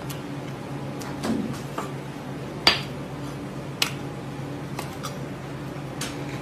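Chef's knife clicking and scraping against a plastic cutting board while filleting small fish, with a few sharp clicks, the loudest a little under three seconds in. A steady low hum runs underneath.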